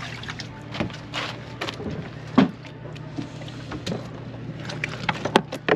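Catfish being handled in a water-filled plastic tub on a boat deck: water sloshing and knocks against the tub, the loudest about two and a half seconds in, with sharp clicks near the end as a fish is lifted out with a fish grip. A steady low hum runs underneath.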